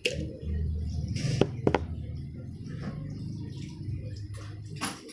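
A few sharp clicks and knocks from an empty glass jar being handled: two close together about a second and a half in and another near the end, over a low steady hum.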